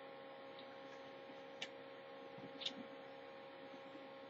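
Faint handling noise as a paper card sleeve is slid into a wallet: two brief soft clicks, one under two seconds in and one near three seconds, over a steady electrical hum.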